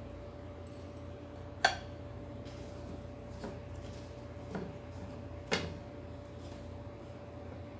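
Hands rolling date balls in desiccated coconut in a wooden bowl and handling the dishes: two sharp clicks, one about a second and a half in and another about four seconds later, with fainter taps between, over a steady hum.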